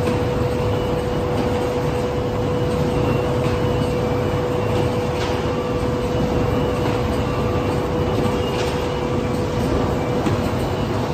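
Flexo printer slotter rotary die-cutter line and its belt stacking conveyor running steadily, a continuous mechanical hum with a constant mid-pitched tone and a few light clicks as cardboard sheets feed through.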